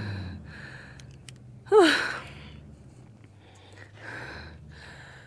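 A woman breathing hard and fast, out of breath from walking up a steep hill, with one short voiced gasp about two seconds in.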